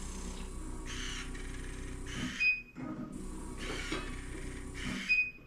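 Electric skin-booster injection machine running in a repeating cycle, with a mechanical whir that ends in a sharp click about every two and a half seconds.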